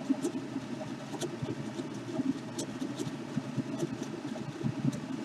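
Small airbrush compressor running steadily, with a few light clicks over it.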